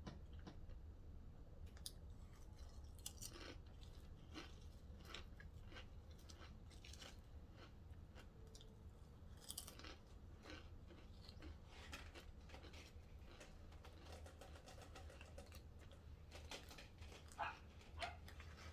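Faint, close-miked chewing of a Subway sandwich: irregular soft smacks, bites and small crunches.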